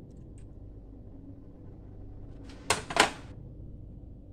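Two sharp clattering knocks in quick succession about two and a half seconds in, over a steady low hum: a kitchen container being handled and set down on the counter between ingredients.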